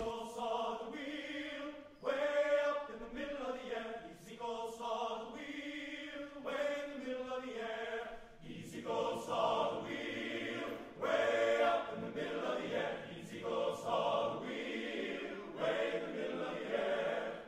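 A choir singing in harmony, with long held notes.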